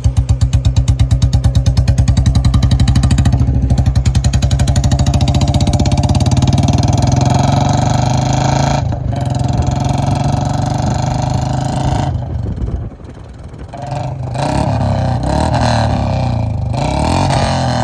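Royal Enfield Bullet 350's single-cylinder J-series engine through a free-flow short-bottle silencer. It starts with distinct, evenly spaced exhaust thumps, then runs smoother and higher as the revs climb. A little past halfway it drops off sharply, then picks up again in a few surges of throttle.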